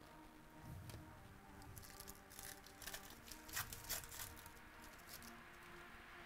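Foil wrapper of a trading-card pack being torn open and crinkled by hand, a cluster of sharp crackles loudest about four seconds in.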